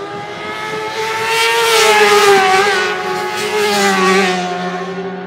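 Two racing motorcycles passing at full speed. The engine note rises and grows louder as they approach, peaks about two seconds in, then drops in pitch and fades as they go by.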